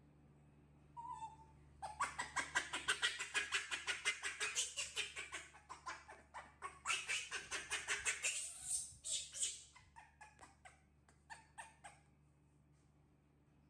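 Baby macaque calling: one short call, then a long run of rapid, shrill squeals several a second, ending in a few last squeaks.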